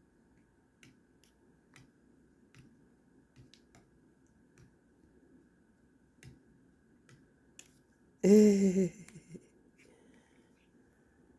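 Faint scattered clicks, then about eight seconds in one loud, short voiced call that falls slightly in pitch.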